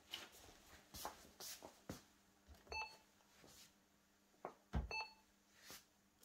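Two short electronic beeps about two seconds apart, over faint scattered knocks, with a low thump just before the second beep.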